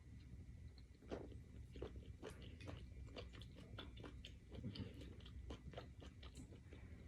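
A person eating close to the microphone: chewing with many small, wet clicks and smacks of the mouth, several a second.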